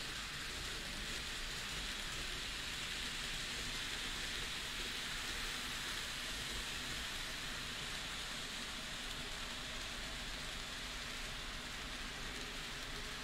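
N gauge model trains running on the diorama track: a steady whirring hiss of small wheels and motors.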